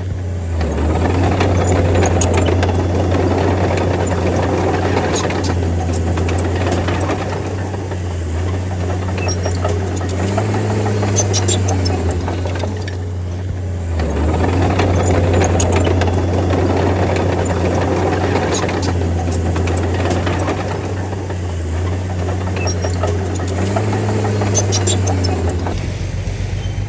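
Bulldozer's diesel engine running steadily under load, its low drone swelling and easing as the blade pushes, with occasional sharp clicks over it.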